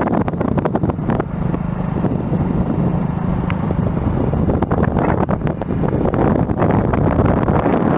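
Royal Enfield Bullet motorcycle running on the move, with heavy wind buffeting on the microphone. A steady engine hum stands out from about a second in to about four seconds in.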